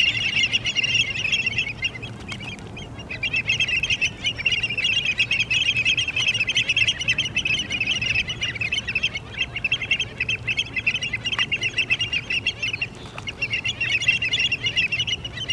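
A flock of birds calling together in a dense, fast chatter of high calls, with a short lull about two seconds in and another near the end.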